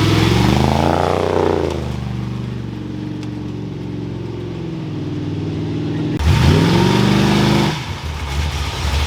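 Off-road race vehicle's engine revved twice, each a quick rise and fall in pitch, running steadily at idle between the revs, then turning rougher near the end.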